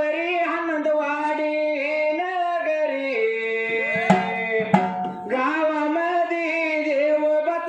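Men singing a Marathi ovi devotional folk song in long held, wavering notes. Two sharp beats on the dhol sound about four and five seconds in.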